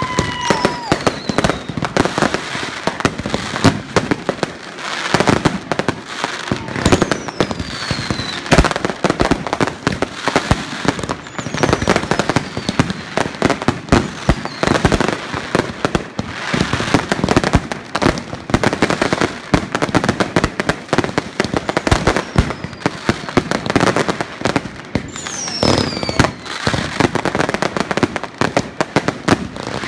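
A continuous barrage of fireworks: dense, irregular bangs and crackling, with a few high whistles that fall in pitch.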